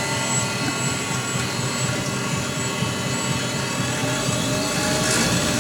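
Amada Wasino GLS-50A optical profile grinder running, its grinding wheel spinning at about 3,500 RPM: a steady, even machine hum with several steady tones.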